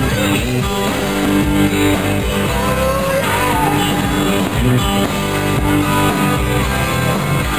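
Rock music with guitar, playing at a steady loud level.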